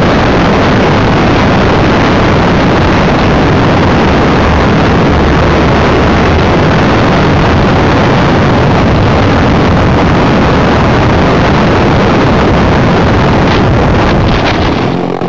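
Loud, steady rush of wind and an electric motor-driven propeller on a camera riding on a Multiplex EasyGlider RC glider in low flight. About fourteen seconds in, the noise drops as the model touches down in dry rice stubble, with a few crackles of stalks against the fuselage.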